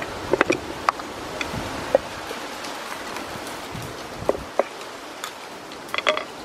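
Light knocks and taps of small objects handled by hand: limes, a garlic bulb and coconut-shell containers set down into an earthenware bowl and a woven basket, in clusters near the start, about two seconds in, around four and a half seconds and near the end. A steady background hiss runs underneath.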